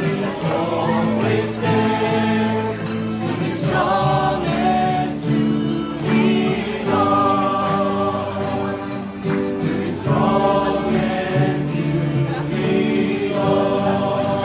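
Christian worship song: music with group singing.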